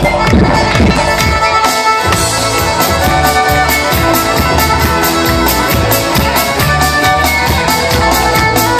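Music with a steady beat and held instrumental notes.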